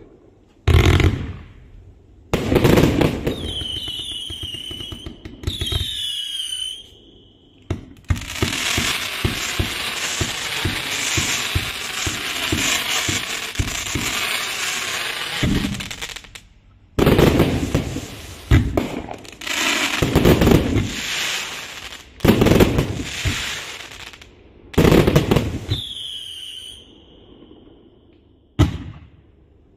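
A 258-shot assorted fireworks cake of 0.8- and 1.2-inch tubes firing. Volleys of launch thumps and bursts come with short lulls between them, and a long dense run of rapid-fire shots fills the middle. Several whistling shots drop in pitch and then hold, twice early on and once near the end.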